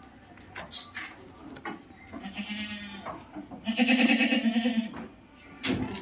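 Goat bleating twice in a quavering voice, the second bleat louder and longer than the first.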